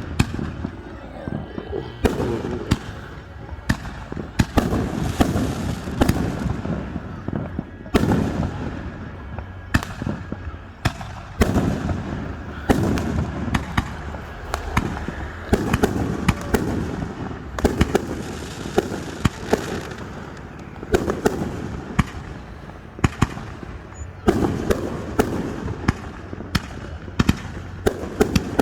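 Fireworks display: a rapid, irregular series of sharp cracks from bursting shells, mixed with deeper booms that rumble on after each burst.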